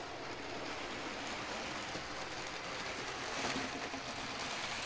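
Hornby OO-scale Flying Scotsman model locomotive hauling two tenders, running along its track with a steady noise of motor and wheels on the rails. It is not running properly, which the owner puts down to a poor electrical connection.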